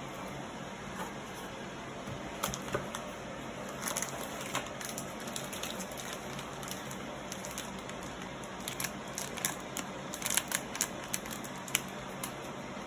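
Chicken wings being mixed by hand in a thick, floury spice marinade: scattered wet clicks and crackles over a steady background hiss, with more of them in the second half.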